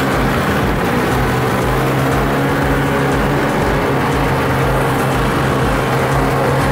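Snowmobile engine running steadily at cruising speed, heard from the rider's seat, its pitch holding level throughout.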